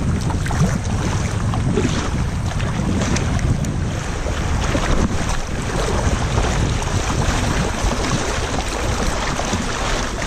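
Fast, shallow river water rushing and splashing along a kayak's hull through a riffle, with steady wind noise buffeting the microphone.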